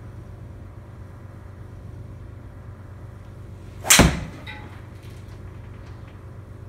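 Callaway XR 3-wood striking a teed golf ball, a single loud, sharp crack about four seconds in, with the ball hitting the simulator's impact screen at almost the same instant. A steady low hum runs underneath.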